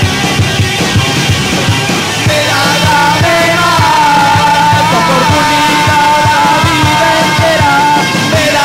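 Live rock band playing: drums, bass and electric guitar. About two and a half seconds in, a held, wavering melodic line comes in over the band and continues.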